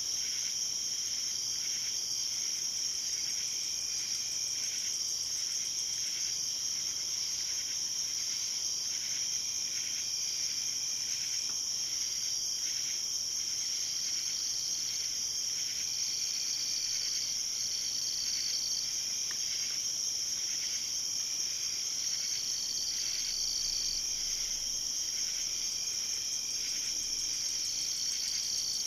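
Chorus of night insects: a continuous high-pitched trill, with shorter chirps repeating over it.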